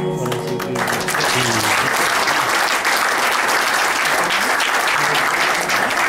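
The last held notes of the dance music die away in the first second, then the audience applauds steadily.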